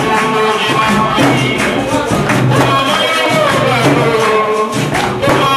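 Capoeira roda music: voices singing over rhythmic hand-clapping and percussion.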